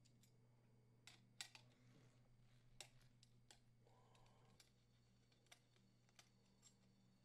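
Near silence with a few faint, scattered clicks and ticks: a screwdriver unthreading the small mounting screws of a gas oven igniter on its metal burner tube.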